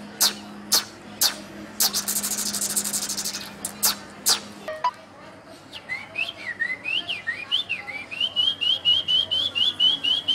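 A man imitating a common myna's song with his mouth: sharp tongue clicks about two a second, a buzzy rattle, then whistled notes gliding up and down that settle into a quick run of short, even whistles, about four a second.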